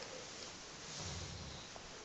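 Doberman snoring in its sleep: one low snore about a second in, over a steady hiss.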